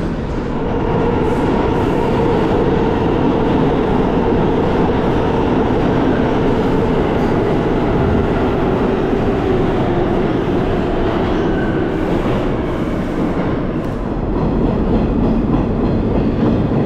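New York City subway trains running through an underground station: a steady rumble of wheels on rail with a held motor hum. Near the end the rumble swells as a train pulls into the near platform.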